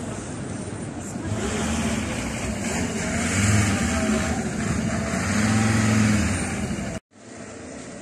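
A motor vehicle's engine humming as it drives past over a steady street noise, swelling twice; the sound cuts off abruptly near the end.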